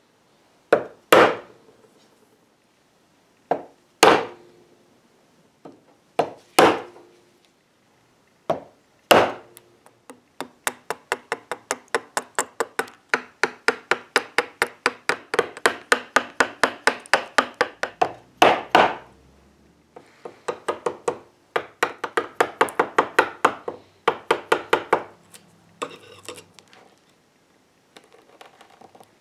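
A wood chisel being struck to cut into an oak table edge: several single hard knocks, then long runs of quick taps, about five a second, with fainter taps near the end. The chisel is cutting out damaged wood to make a recess for a patch.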